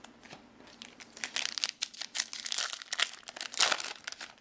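Foil wrapper of a trading-card booster pack being torn open and crinkled by hand, a run of crackles starting about a second in and loudest near the end.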